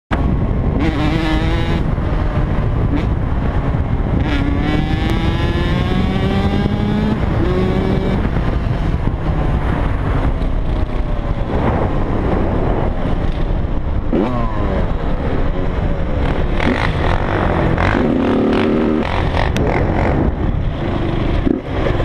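Dirt bike engine accelerating and shifting, its pitch rising in repeated climbs that drop off at each gear change, under heavy wind buffeting on a helmet-mounted camera.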